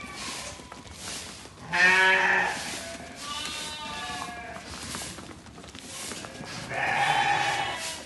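Merino sheep bleating: three calls, a loud one about two seconds in, a fainter one shortly after, and another loud one near the end.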